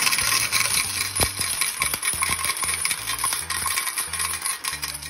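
Metal game tokens pouring out of a token dispenser into its cup, a continuous rapid clatter of tokens striking the cup and each other.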